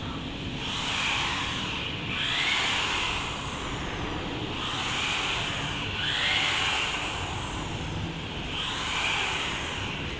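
Factory machinery running: a steady mechanical noise with a hissing whoosh that swells and fades every second or two.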